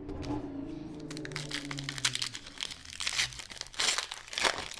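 Foil wrapper of a 2021 Panini Classics football card pack crinkling and tearing as it is ripped open by hand, with dense crackling that is loudest near the end.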